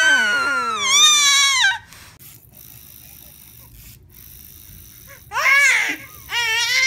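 A baby's high-pitched squealing wails for the first couple of seconds. After a quiet stretch, near the end, a baby squeals with laughter twice.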